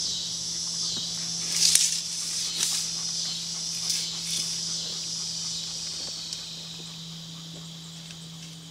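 Steady high-pitched insect chorus that slowly fades, over a low steady hum, with a few short clicks and rustles in the first four seconds.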